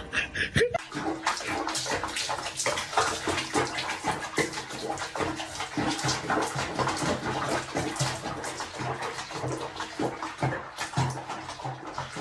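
Water splashing and sloshing in a tub as a cat sits in foamy bathwater, many small irregular splashes, starting about half a second in.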